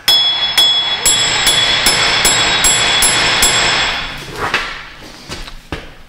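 A hammer striking the steel front wheel hub of a Dodge Avenger about ten times, roughly two to three blows a second, each blow ringing. The blows are knocking at a hub bearing stuck fast in the steering knuckle. They stop about four seconds in, followed by a couple of lighter knocks.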